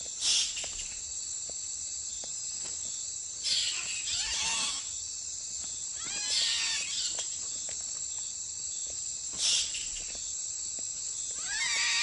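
Bats squeaking and chittering in several short bursts a few seconds apart, the squabble of bats contesting a feeding spot, over a steady high drone of night insects.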